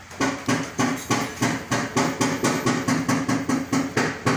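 Rapid, regular metallic knocking, about three blows a second, each with a short ring, starting a moment in.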